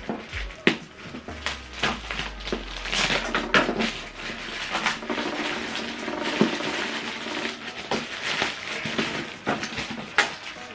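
Cardboard box and packaging being handled and opened: irregular knocks, clicks and rustling of cardboard and plastic.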